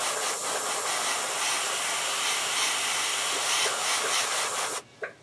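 Airbrush spraying paint onto a small crankbait: a steady hiss of air that cuts off abruptly near the end as the trigger is released.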